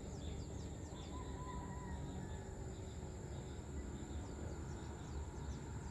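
Open-air ambience: a steady low rumble under short runs of quick, high chirps that drop in pitch, several a second, with a faint brief whistle about a second in.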